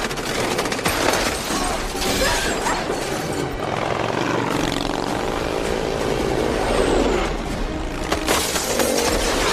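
Action-film chase sound mix: vehicle and motorbike engines with crashes and impacts, under a music score.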